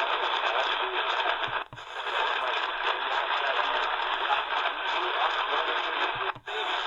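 Medium wave static and hiss from the C.Crane Skywave's speaker while it is tuned between AM stations, briefly cutting out twice as the frequency is stepped.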